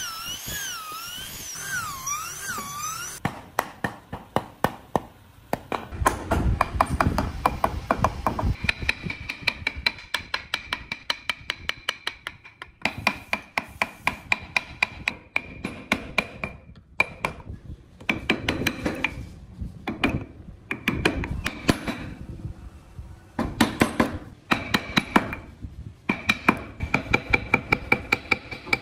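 Steel wood chisel struck with quick, light blows as it cuts into Fokienia wood: sharp taps, several a second, in runs with short pauses. The tapping starts about three seconds in.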